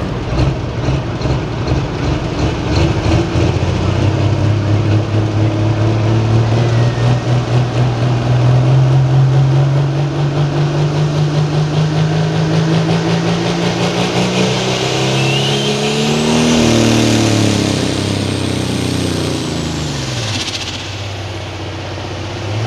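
Light-limited pro stock pulling tractor's turbocharged diesel engine running hard under load, its pitch climbing slowly as it pulls. About sixteen seconds in it comes off the throttle and the engine note drops away.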